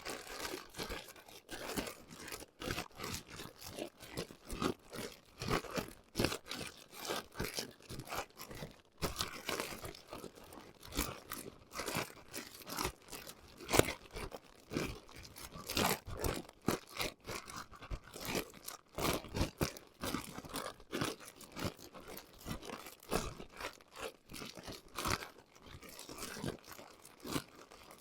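Plastic zip-top bag crinkling and rustling irregularly as a meatloaf mixture is kneaded by hand inside it.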